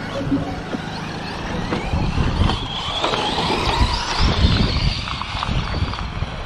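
Brushless electric motors of RC short-course racing trucks whining, their pitch rising and falling as the drivers work the throttle, over a low, gusty rumble.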